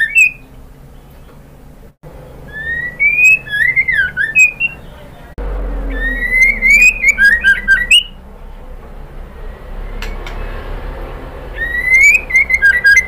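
White-rumped shama, sold as a female calling for a male, giving a repeated whistled call. Each phrase is a rising whistle that breaks into quick falling notes with scratchy edges. There are three such phrases a second or two apart, then a pause of a few seconds before the last.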